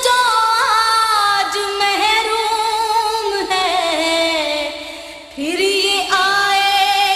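A woman singing a naat, an Urdu devotional song in praise of the Prophet. She holds long notes with small ornamental turns, and her voice falls lower and softer before returning strongly about five and a half seconds in.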